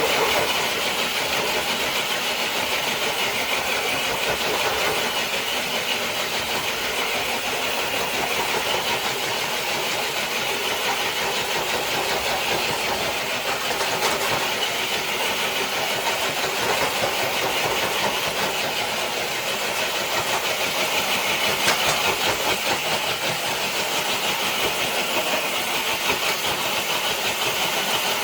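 A scale RC crawler truck pulls a dead sled weighted with two bricks across concrete: a steady whir from its electric motor and gears straining under load, mixed with the sled scraping along the ground.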